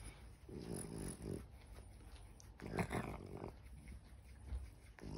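French bulldog growling and grunting in two rough bouts as its cheeks are rubbed, the first starting about half a second in and the second, louder one near three seconds.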